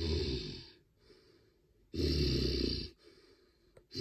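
A person voicing the Bane figure with heavy, growling breaths, three of them about two seconds apart, each under a second long.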